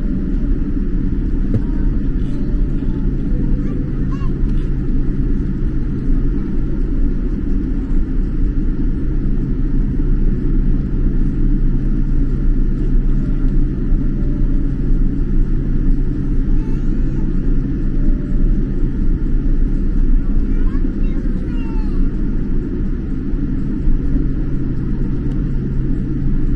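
Jet airliner cabin noise while taxiing: a steady rumble from the engines at low thrust and the aircraft rolling, with a steady low hum underneath.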